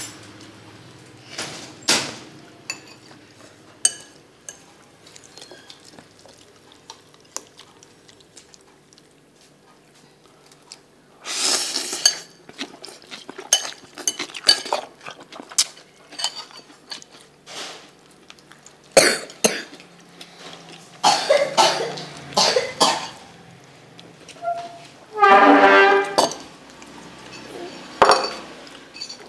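Metal fork and spoon clinking and scraping against a ceramic bowl while noodle salad is mixed and eaten, in scattered light clinks with a few louder clusters. Near the end comes a short, voice-like sound, perhaps a cough.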